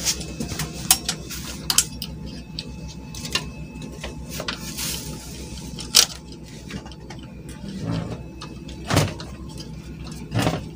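Handling noise from a CRT TV's circuit board and plastic chassis as a small power-supply module is fitted by hand: scattered clicks and knocks, a sharp knock about six seconds in and a couple of heavier thuds near the end. A steady low hum runs underneath.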